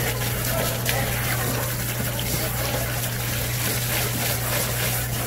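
Water running and splashing, as from a tap or hose, over a steady low hum.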